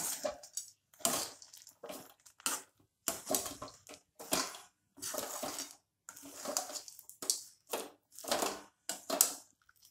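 A metal ladle stirring crushed peanuts through thick, sticky jaggery syrup in a steel kadhai: repeated scraping, crunching strokes, roughly one or two a second, with short pauses between them.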